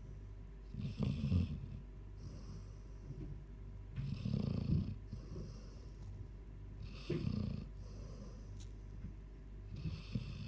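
A 14-year-old Labrador snoring in its sleep: four low, rasping snores about three seconds apart, with quieter breaths between them.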